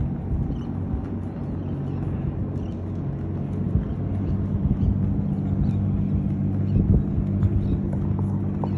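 Ship's machinery during docking: a steady low hum over an uneven rumble. The hum grows louder about four seconds in.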